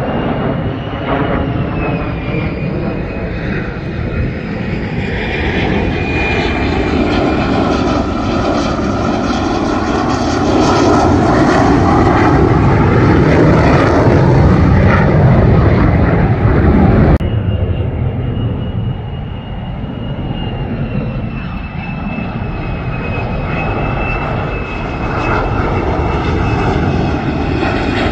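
Fighter jet engines of low-flying military jets, among them an F-35 on approach with its landing gear down, running continuously with a high steady whine over the noise. The noise builds to its loudest a little past halfway, then breaks off abruptly at a cut. After the cut, another jet's engine noise carries on more quietly.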